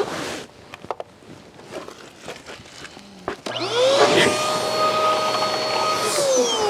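Handheld electric car-drying blower (a BLO Handgun) spinning up with a rising whine about three and a half seconds in, running steadily at a high pitch, then winding down with a falling whine just before the end. Scattered light clicks come before it.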